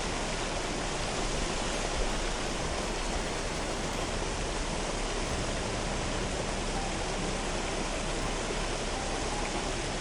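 Steady, unbroken rush of fast-flowing floodwater.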